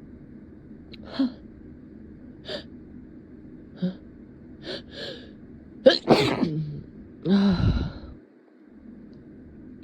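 A person's breath catching in several short gasps as a sneeze builds, then a loud sneeze about six seconds in, followed at once by a second, voiced burst.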